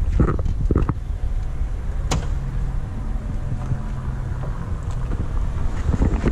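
Rear cargo doors of a Ford Transit van being opened, with a sharp latch click about two seconds in, over a steady low rumble.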